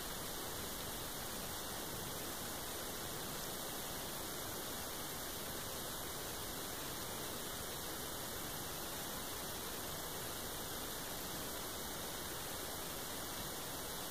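Steady hiss like static, even and unchanging, with no distinct sound standing out.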